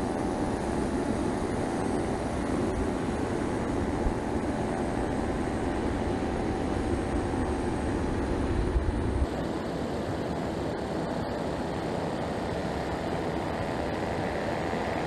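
Steady cabin noise of an E-3A AWACS aircraft: an even rush with a few faint steady hums. About nine seconds in, the deep rumble drops away abruptly.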